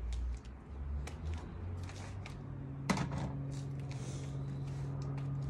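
Scattered clicks and knocks of objects being handled, with one sharper knock about three seconds in, over a steady low hum.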